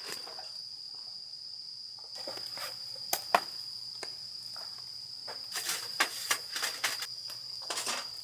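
Crickets chirring steadily at one high pitch, with rustling and sharp wooden knocks as split firewood is handled and stacked in a fire pit. The loudest knock comes about three seconds in, and a run of knocks follows in the second half.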